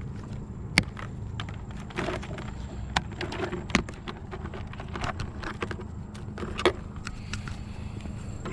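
Scrap metal clanking and knocking as it is handled and loaded, with four louder clanks among many small ones, over a vehicle engine idling steadily.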